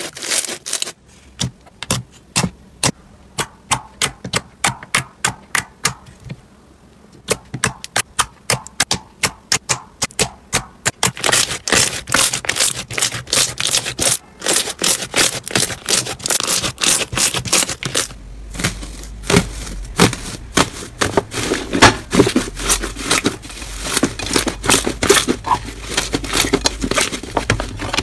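Hands squeezing and pressing slime, including a purple foam-bead crunchy slime, make a run of sharp clicks and pops. These are spaced apart at first and come thick and fast from about eleven seconds in.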